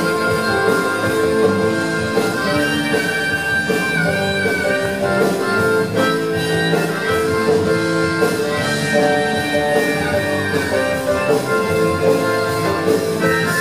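Rock band playing live, an instrumental stretch with no vocals.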